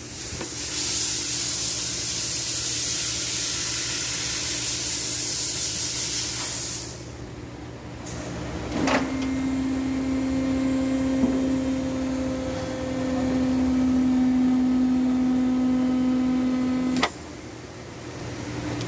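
A strong steady hiss, like air being blown or sprayed, for about seven seconds. After a click, a motor hums at a steady pitch for about eight seconds and cuts off suddenly.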